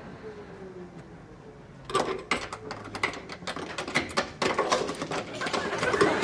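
A key rattling and clicking in a door lock, with the handle jiggled: a quick, irregular run of sharp metallic clicks and jangles that starts about two seconds in after a quiet start.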